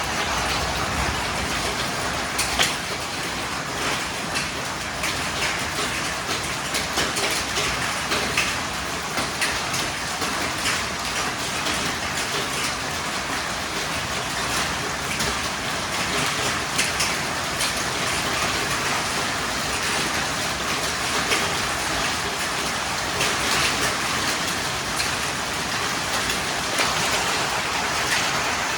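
Heavy downpour of rain and hail: a steady loud hiss with frequent sharp ticks of stones striking hard surfaces.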